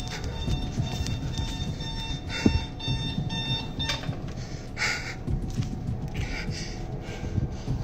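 Electronic alarm beeping in rapid, high-pitched pulses that stop about halfway through. Rustling handling noise runs under it as the phone is carried.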